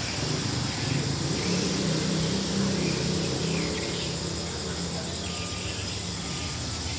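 Crickets chirping steadily in a high, continuous shrill. Beneath them runs the low drone of a GE diesel-electric locomotive (SRT GEA class) as it comes into the station.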